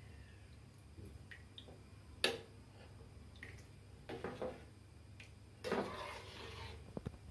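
Steel spoon stirring thin masala oats in a stainless steel bowl: wet sloshing and scraping in two stretches, with one sharp clink of spoon against the bowl about two seconds in.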